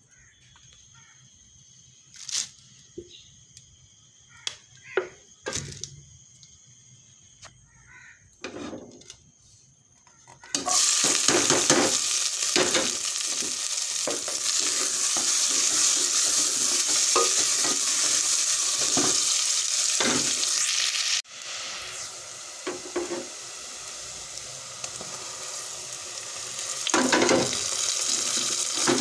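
Sliced onions frying in hot oil in an aluminium pan: after a few light knocks, a sudden loud sizzle starts about ten seconds in as the onions go in, and it runs on with a spoon scraping and stirring them.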